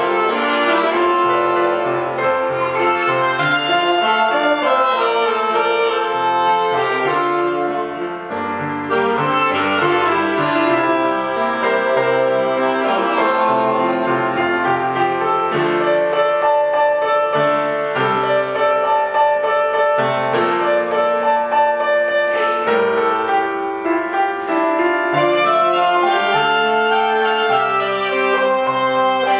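Small wind ensemble of clarinet, saxophone and trombone playing a tune together, the reed instruments carrying the melody over held trombone notes.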